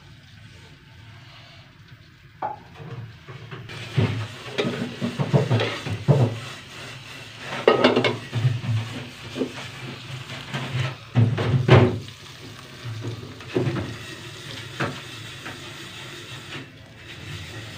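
Baghaar of small dried red chillies, onion and spices sizzling and crackling in hot oil in a small saucepan, spitting in irregular bursts, with a few clinks of metal against the pan.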